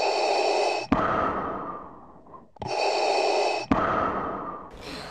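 Intro sound effect played twice: each time a noisy rush about a second long that stops on a sharp hit, then fades out over a second or so.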